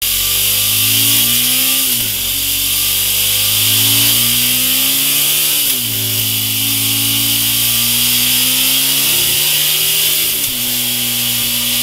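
KTM 1090 Adventure's V-twin on its stock exhaust, running on a dyno: the revs climb, drop sharply about two seconds in as it shifts up, climb again to another drop near six seconds, then climb once more before a last drop near the end. A steady high hiss runs over the engine note.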